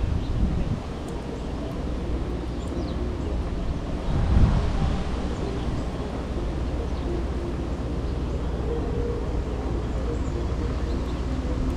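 Outdoor town ambience on a windy day: a steady low rumble of wind and distant traffic, swelling louder for a moment about four seconds in. A few faint, short bird chirps sound over it.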